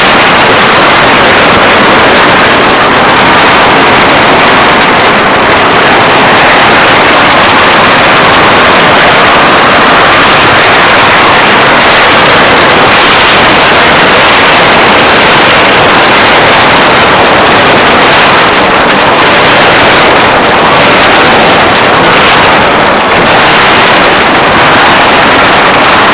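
A firecracker string going off in a loud, dense, unbroken crackle.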